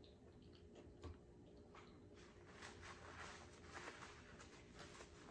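Near silence, with faint scattered clicks and crackles of someone eating and drinking close to the microphone. The clicks grow denser from about two seconds in, with a single soft thump about a second in.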